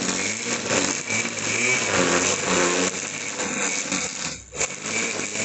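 Tramontina AP1000T corded electric string trimmer running, its nylon line whipping through lawn grass. The sound dips briefly near the end.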